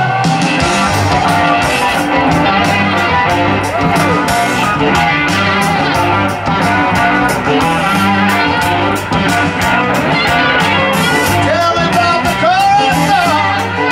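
Live rock band playing loudly: electric guitars, bass and drums on a steady beat. Near the end a slide guitar plays notes that glide up and down in pitch.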